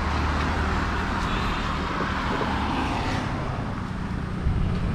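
Steady road-vehicle noise: a low rumble under a continuous hiss of passing traffic.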